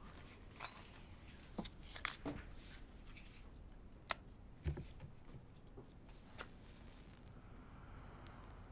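Small clicks and light knocks of objects being handled and set down on a table, with one duller thump about halfway through, over quiet room tone.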